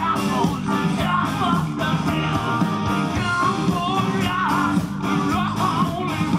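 Live rock band playing through a stage PA: electric guitars, keyboard and drums, with a voice singing over them.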